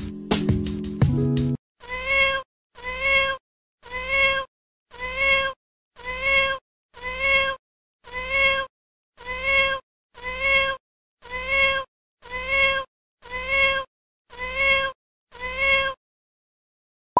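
A cat's meow, the same call repeated fourteen times at an even pace of about one a second: a looped meow sound effect. A moment of music comes just before it.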